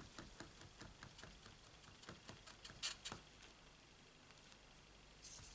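Near silence with faint light taps and clicks: a clear acrylic stamp block being pressed and tapped on a VersaMark ink pad and handled, with two slightly sharper clicks about three seconds in.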